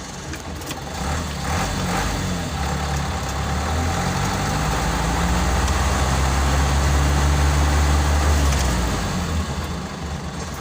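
A vehicle engine running steadily with a low rumble, swelling gradually and easing off near the end.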